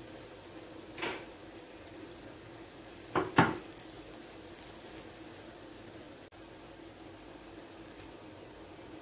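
Tomato sauce with eggs simmering in a clay tagine, a steady low sizzle. There is a short knock about a second in and two sharp knocks a little over three seconds in, which are the loudest sounds.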